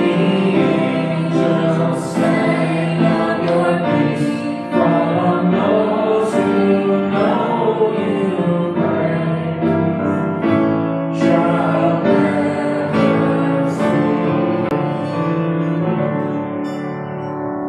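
A small church praise band playing and singing a worship song: voices with piano and acoustic guitars, in sustained chords that die away in the last second or so.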